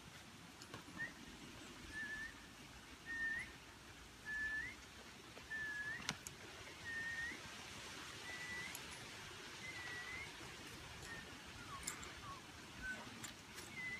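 A faint series of short whistled notes, about one a second, each held at one pitch and flicking upward at the end, with a few lower, falling notes near the end. Faint clicks now and then.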